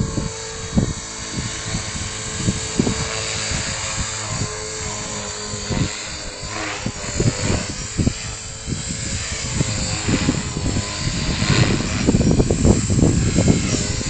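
An Align T-Rex 450 electric RC helicopter flies overhead, its rotor and motor whine rising and falling in pitch. Strong wind buffets the microphone in gusts, heaviest near the end.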